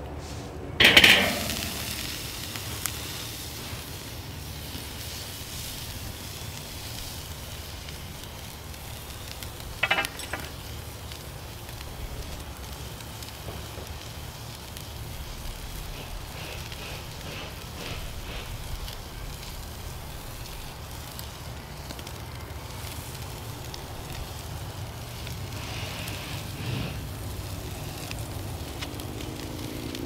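Raw steak laid on the hot grate of a charcoal kettle grill: a loud burst of sizzling about a second in that fades into a steady sizzle, with another brief louder burst about ten seconds in.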